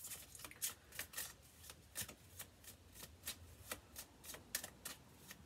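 A tarot deck being shuffled by hand: soft card snaps and riffles, irregular, about two or three a second.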